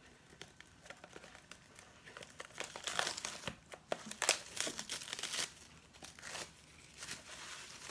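Food packaging being handled: irregular crinkling and rustling with small clicks and knocks, busiest in the middle.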